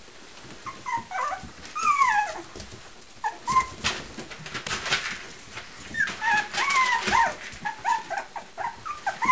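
Six-week-old Shichon puppies whimpering and yipping as they play: many short, high, squeaky cries that bend in pitch, coming in two clusters. There are a couple of brief knocks in the middle.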